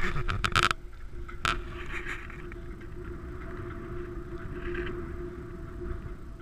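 A burst of wind buffeting on the microphone cuts off under a second in. It leaves the steady hum of a pickup truck's engine idling, with a single sharp click about a second and a half in.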